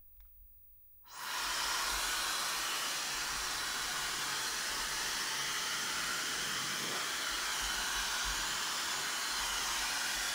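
Mescomb rotating hair dryer brush with the blower attachment switched on at full power, starting about a second in and then blowing with a steady, even rush of air.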